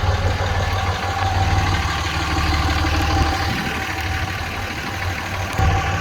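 A truck engine idling steadily with a low hum.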